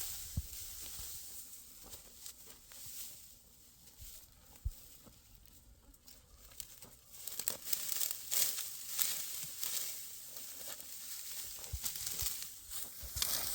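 Dry wheat straw rustling and crackling in irregular bursts, sparse at first and denser in the second half.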